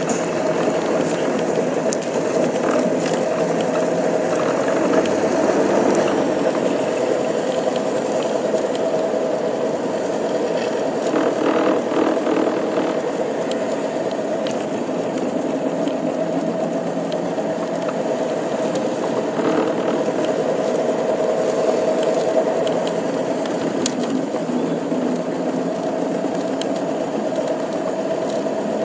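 Ford Model T's four-cylinder engine running steadily while the car is driven, with the body and mechanisms rattling and clicking, heard from inside the cab.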